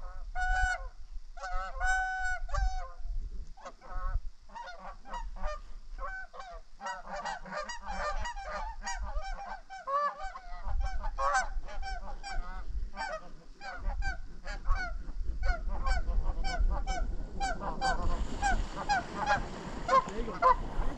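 Canada geese honking: separate honks at first, then from several seconds in a dense run of many overlapping honks and clucks as a flock calls close by.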